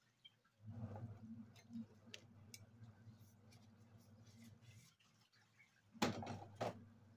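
Pot of lamb and onions boiling on a gas stove, faint bubbling and popping over a low hum. About six seconds in, two loud knocks half a second apart.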